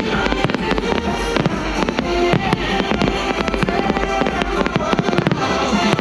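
Fireworks bursting and crackling in quick, irregular succession over a loud music soundtrack played over speakers.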